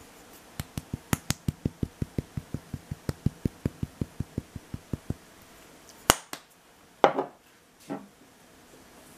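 Spice shaker shaken to sprinkle ground spice, an even run of light ticks at about five a second for some four and a half seconds. Then a single sharp click and a short scrape a second later.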